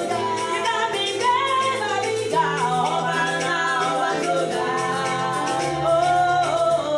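Gospel song: a singing voice carrying a melody over instrumental backing with held bass notes and a steady percussion beat.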